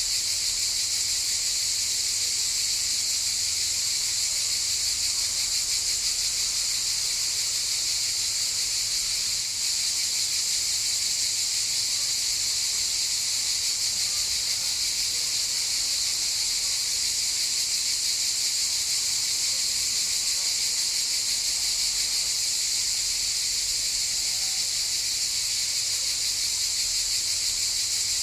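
A chorus of cicadas buzzing in a continuous, steady, high-pitched drone.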